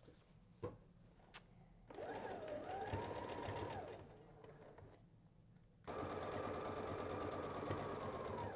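Electric household sewing machine stitching a seam through layered T-shirt knit fabric, in two runs. The first starts about two seconds in, speeds up, holds, then slows to a stop. The second starts about six seconds in and runs steadily; a couple of light clicks come before the first run.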